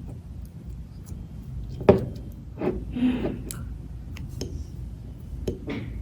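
Sticky clicks and squelches of clear slime being handled and mixed, a few separate wet snaps with the loudest about two seconds in, over a low steady hum.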